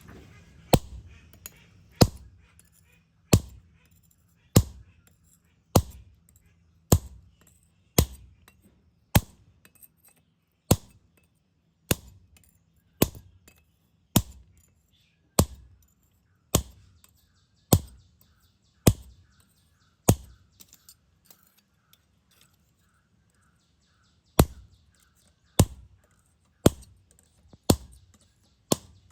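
Hand hammer striking metal on an anvil in slow, even single blows, about one a second, each ringing briefly. The blows stop for about four seconds past the middle, then carry on at the same pace.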